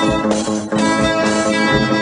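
Instrumental music led by guitar, with sustained bowed-string notes and a regular low beat.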